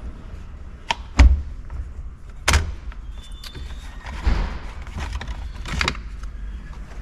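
Plastic steering column shroud of a Jeep TJ being worked loose and lifted off by hand: several sharp plastic clicks and knocks, the loudest about a second in, with a short rustle partway through.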